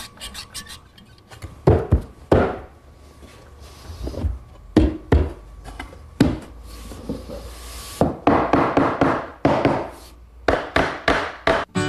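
Irregular wooden knocks and taps from workshop assembly work on plywood fence and table parts, some single and some in quick runs, with a busier stretch of handling noise about eight seconds in.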